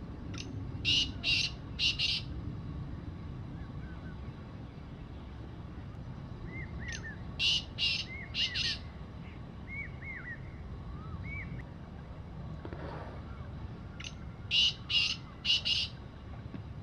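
Black francolin calling three times, about seven seconds apart: each call is a short opening note followed by four loud, harsh notes in quick succession. Faint chirps of small birds come in around the second call, over a steady low background rumble.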